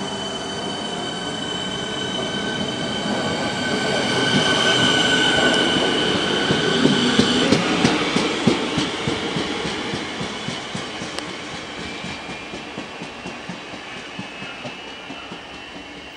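Siemens Nexas electric train moving along the platform and drawing away. A high electric whine of several steady tones builds for the first six seconds or so and cuts off about seven and a half seconds in. After that the wheels click rhythmically over rail joints, the clicks fading as the train recedes.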